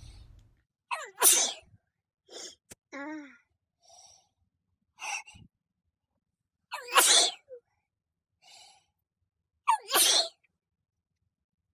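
A person sneezing three times, about a second, seven seconds and ten seconds in, each sneeze led by a short voiced 'ah' just before. Softer breaths and a short falling voiced sound come in between.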